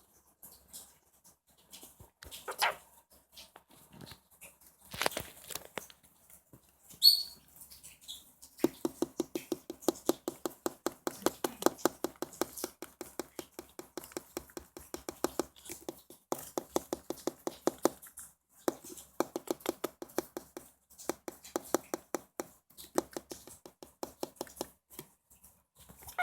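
Peach-faced lovebird: a brief noisy burst and a sharp high chirp, then a long run of rapid clicking taps, several a second, broken by short pauses.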